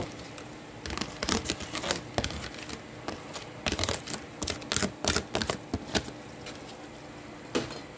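Dried rice noodles crackling and snapping as tongs push them into a pan: irregular sharp clicks in clusters, with a last one near the end.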